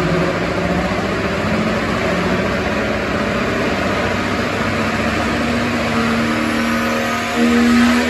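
Modified pulling pickup truck's engine running steadily while hooked to the weight sled, then revving up with a rising pitch and getting louder about seven seconds in, just before the pull starts.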